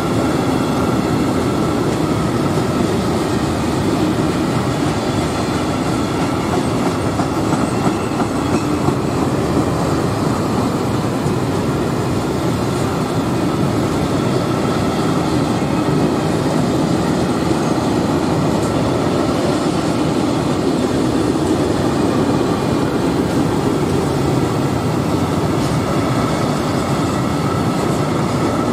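Long freight train of Eccobox open wagons rolling past, their wheels running steadily on the rails.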